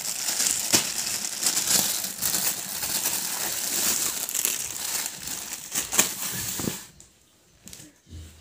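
Clear plastic packaging around a folded cotton bedsheet crinkling and crackling as it is handled and pulled open; the crinkling stops about seven seconds in.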